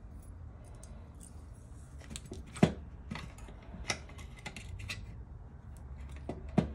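Scattered clicks and taps of hands handling a printer fuser unit's plastic frame and fitting its metal tension spring, with one sharp click about two and a half seconds in the loudest and a few smaller ones later.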